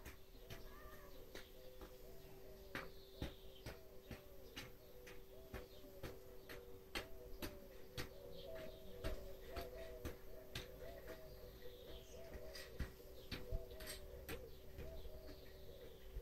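Birds calling outdoors: a steady run of short low notes repeated a few times a second, with occasional higher gliding whistles and scattered sharp clicks.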